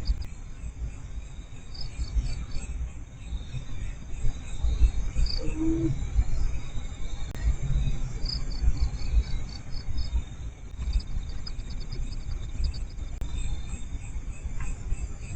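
Crickets trilling in repeated pulsed bursts, with a loud uneven low rumble underneath.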